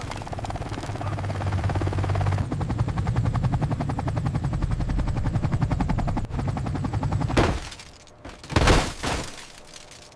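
Helicopter sound effect with a fast, steady rotor chop, then two loud sudden crashes about seven and a half and nine seconds in, as the stricken helicopter goes down.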